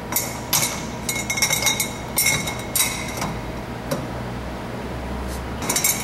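Metal clinks and clanks from a breaker bar and socket on the brake wheel's lock nut as it is forced with a foot, the nut being set with Loctite 680. Sharp clinks with a slight ring come in a string through the first half, then a quick rattle of clinks starts near the end.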